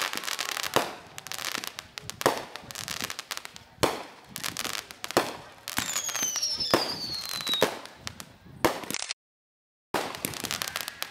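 Aerial fireworks going off: a quick string of bangs and crackling from bursting shells, with a whistle that falls in pitch about six seconds in. The sound cuts out completely for under a second near the end.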